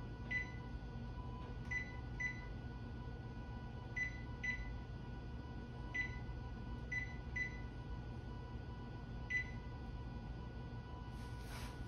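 Electric wall oven's control-panel keypad beeping as its buttons are pressed to set the timer: about nine short, high beeps, irregularly spaced. A brief rustle near the end.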